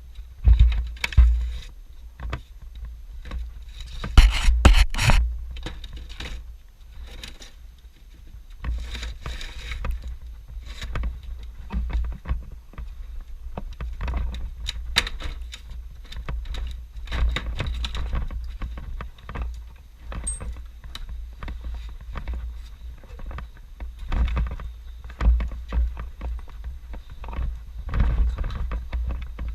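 Irregular wooden knocks, scrapes and clatter from climbing an old wooden ladder and working a hatch inside a bell tower, the loudest knocks near the start and about four seconds in, over a low rumble.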